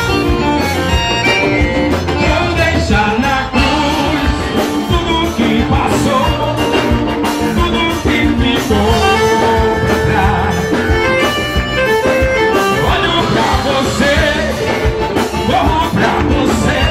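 Live gospel band playing an instrumental passage between sung lines of a song, with some singing in the mix.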